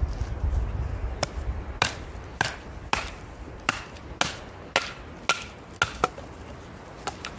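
A hatchet splitting a small upright length of firewood: about a dozen short, sharp chopping strikes, roughly half a second apart, beginning about a second in.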